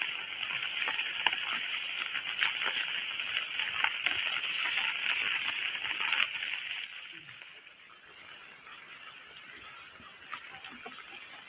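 Heavy rain pattering, a dense hiss of countless small drops. About seven seconds in it cuts out abruptly to a quieter forest background with a steady high-pitched insect drone.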